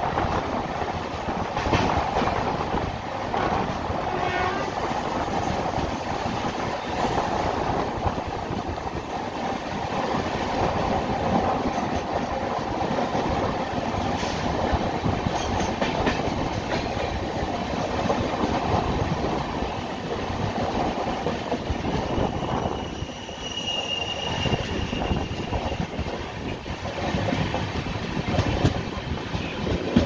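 Passenger train running steadily on the rails, a continuous rumble with the clickety-clack of wheels over rail joints. A brief high-pitched tone rises above it about three-quarters of the way through.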